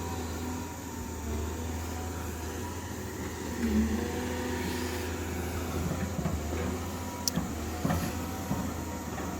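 Caterpillar 320D excavator's diesel engine running steadily, with a couple of sharp clicks near the end.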